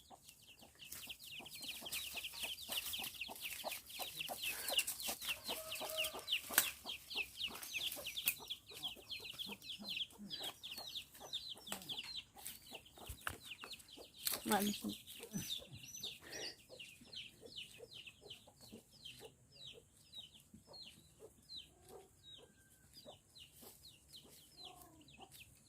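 Chickens calling: a rapid run of short, high, falling notes, several a second, that thins out and grows fainter in the second half.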